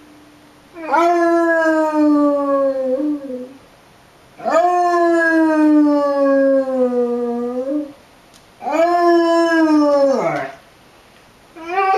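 Basset hound howling along to tornado sirens: three long howls, each jumping up in pitch and then sliding slowly down, with a fourth starting near the end.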